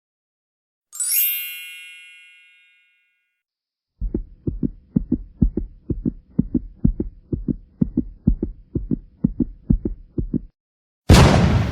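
A bright chime ding that rings out and fades over about two seconds. After a pause comes a heartbeat sound effect: a steady run of low lub-dub thumps lasting about six seconds. Near the end, a short loud burst of noise cuts in as the next effect starts.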